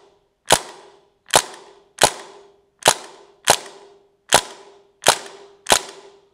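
Crosman DPMS CO2 blowback BB rifle firing semi-automatic: eight sharp shots in a steady string, about one every 0.7 seconds.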